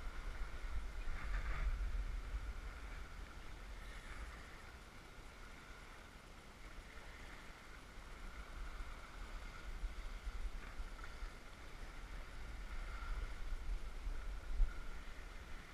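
Wind rumbling on the microphone over the wash of water along the hull of a wooden sailboat under sail. It is louder in gusts during the first few seconds and again near the end.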